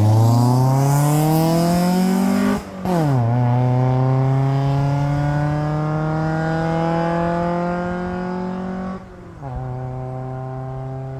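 1995 Honda Civic's four-cylinder engine, now breathing through a full exhaust, accelerating hard under load with its pitch climbing steadily. It shifts up about three seconds in, climbs again, and shifts up once more about nine seconds in.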